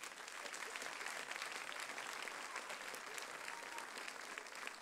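Audience applause: many people clapping together, dense and steady.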